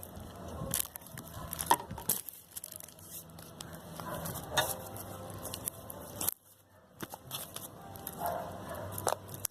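Freshly made fluffy slime (shaving foam and boric water) being handled, stretched and pulled apart, giving irregular crackling, tearing and sticky clicking sounds. It drops out abruptly for under a second about six seconds in.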